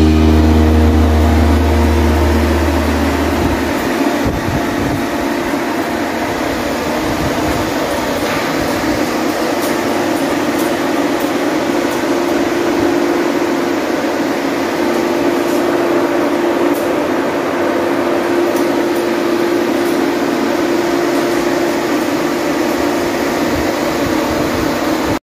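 Steady mechanical hum with one constant mid-pitched tone over a noisy rushing background; a deep low tone underneath stops about four seconds in.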